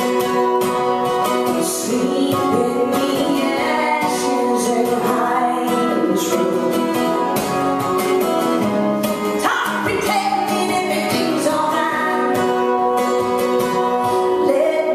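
A woman singing live while strumming an acoustic guitar, voice and guitar together at a steady loudness.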